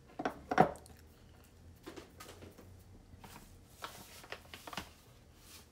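A few sharp wooden knocks, loudest about half a second in, then softer clicks and taps: a small wooden salt cellar being handled and set down on a wooden counter beside halved napa cabbages.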